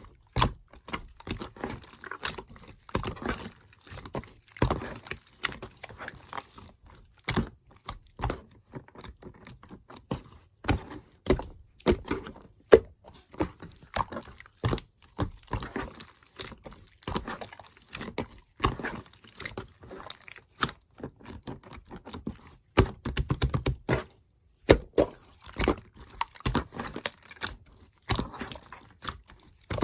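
Slime with clay mixed into it being pressed and worked by hand, making a dense, irregular run of sticky clicks and small pops with soft squishing between them, pausing briefly near the end.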